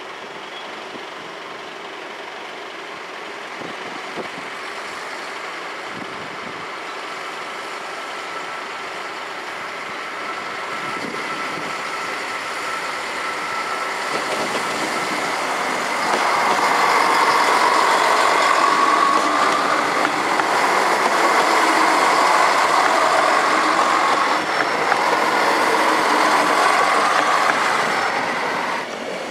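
Two coupled X 73500 diesel railcars approaching and passing close by, engines running with wheel and rail noise. The sound swells slowly, turns loud about halfway through as the train reaches the crossing, and drops off sharply just before the end.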